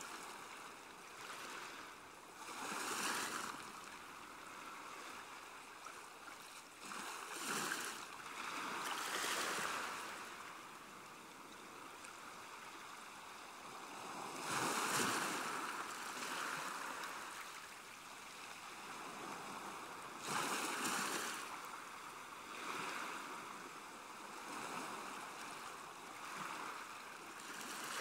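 Sea water lapping and washing, swelling up every few seconds.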